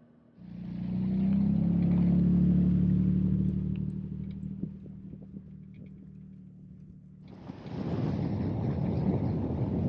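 Pickup truck engine pulling up a grade, a steady drone that starts abruptly, rises a little in pitch, then fades. About seven seconds in it gives way abruptly to a rougher, noisy rumble with hiss, like tyres on a dirt road and wind.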